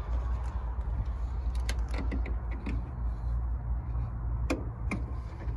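Sharp clicks and taps of plastic interior trim being handled and pried off a pickup's cab: a cluster in the middle and two louder knocks near the end, over a constant low rumble.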